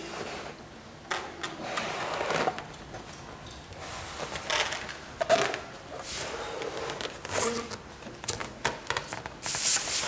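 Rushing puffs of breath blowing up a rubber balloon, with scattered knocks and rustles of toys being handled.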